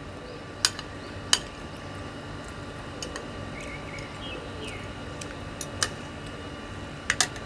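A person quietly eating a raw oyster dipped in seafood sauce: a few sharp, light clicks scattered over a faint steady background.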